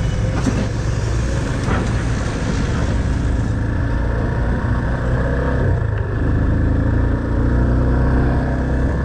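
Motor vehicle engine running steadily, a low drone with a haze of noise over it and small changes in pitch partway through.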